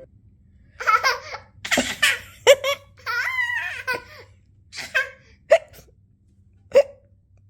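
A toddler laughing in short bursts, broken by short, sharp hiccups; the hiccups stand alone near the end.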